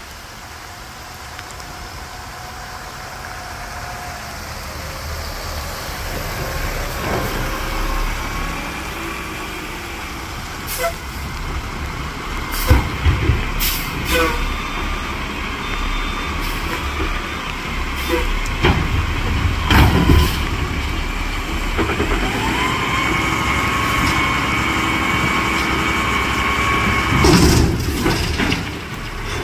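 Front-loader garbage truck running, growing louder as it pulls up, with several sharp metal bangs and hisses as its forks engage a dumpster. A steady whine from the hydraulics follows as the arms lift the dumpster over the cab, then a loud bang near the end as it is tipped.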